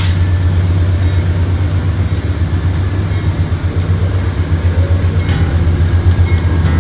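A moving vehicle gives a steady low rumble throughout, with a few light clicks about five seconds in.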